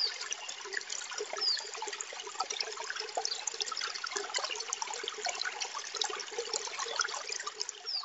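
Trickling water, a dense steady patter of small drips and splashes, with a few short high falling chirps about a second and a half apart near the start and again near the end.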